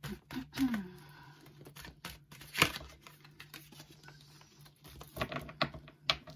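Tarot cards being shuffled by hand, the cards slapping together in quick irregular clicks, with one sharper snap a little over two and a half seconds in.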